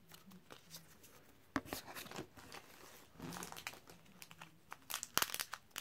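Quiet crinkling and crackling of a trading-card pack's wrapper and the cards inside being handled, in short bursts about a second and a half in, around three seconds in, and loudest near the end.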